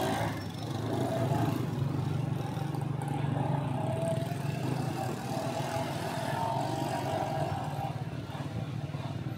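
Small motorcycle engine running at a steady cruising speed, heard from on the bike while riding through street traffic. A higher wavering engine whine joins from about two seconds in until near the end.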